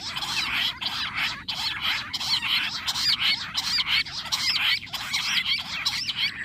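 A covey of jungle bush quail calling together: a continuous chorus of quick, overlapping squeaky chirps, each note rising and falling in pitch.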